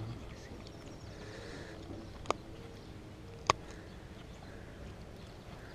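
Two sharp clicks about a second apart over a faint, steady outdoor background.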